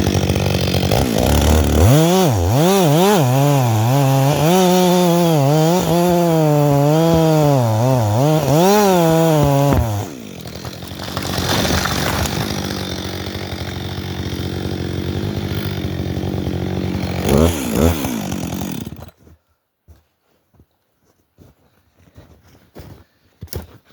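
Two-stroke chainsaw cutting hemlock, the engine note rising and falling under load for about ten seconds, then running lower with two quick revs before it is shut off. A few faint knocks follow in the quiet.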